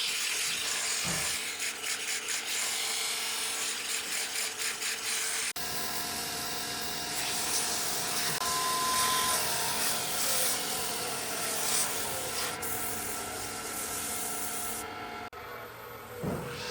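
Wood being shaped with a power tool: the tool rubs and scrapes against the wood over a motor's steady hum. The sound changes abruptly about five and a half seconds in and again near the end.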